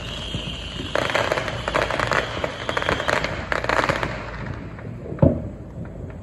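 Fireworks going off: a dense run of crackling pops for about three and a half seconds, then a single loud bang about five seconds in.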